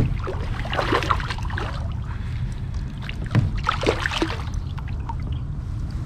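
A hooked largemouth bass thrashing and splashing at the water's surface beside a kayak. There are short bursts of splashing about a second in and again around the middle, over a steady low rumble.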